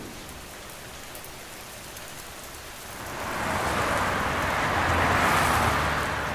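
A steady hiss of rain that swells for a few seconds from about halfway through, then eases off again near the end.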